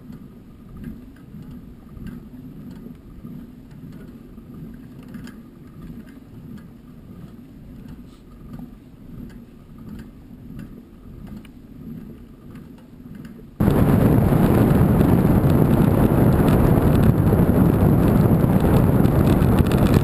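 Wind buffeting the microphone: a loud, even rush that cuts in abruptly about two-thirds of the way through, after a stretch of quieter low rumbling.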